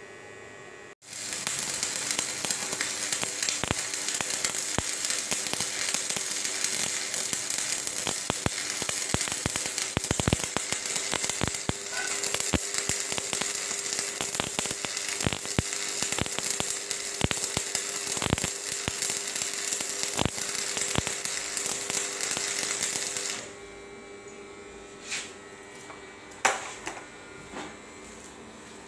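Stick (shielded metal arc) welding: the arc strikes about a second in and crackles steadily, full of sharp pops, then stops abruptly about 23 seconds in. A few faint knocks follow near the end.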